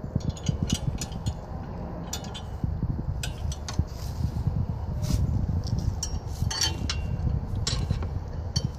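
Metal hydraulic hose quick-coupler fittings clicking and clinking as the hoses are handled and connected, heard as an irregular scatter of sharp clicks over a low rumble of wind on the microphone.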